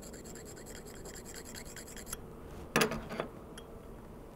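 Fine 320-grit hand stone rubbed back and forth in rapid, even strokes over a hardened steel Jacobs drill-chuck jaw to take off burrs; the stroking stops a little over two seconds in. About a second later comes a brief louder clatter.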